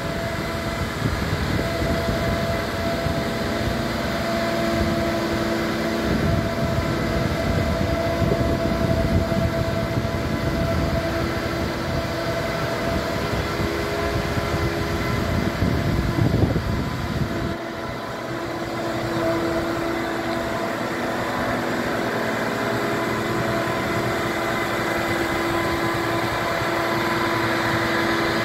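Mobile boat travel lift running as it carries a yacht in its slings: a steady engine hum with a held hydraulic whine. A low buffeting rumble, typical of wind on the microphone, sits under it and drops away about two thirds of the way through.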